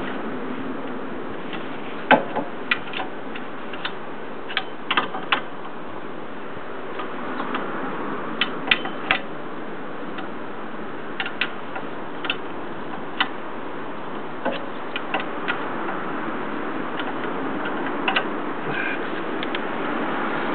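Irregular sharp clicks and taps, a few dozen scattered through a steady background hiss, loudest a couple of seconds in and again a little before the middle.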